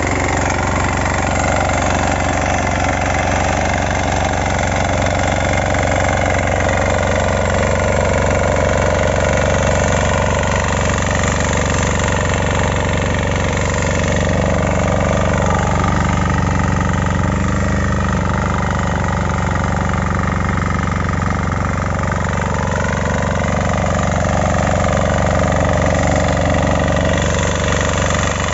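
Kisan Kraft 6 HP inter-cultivator's single-cylinder engine running steadily as it tills the soil, its note shifting slightly about halfway through.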